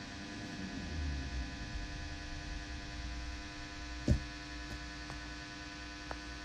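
Steady electrical hum with a low rumble underneath, and one short knock about four seconds in.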